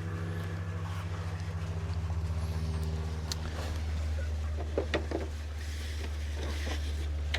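Steady low mechanical hum, with a few faint clicks and taps around the middle.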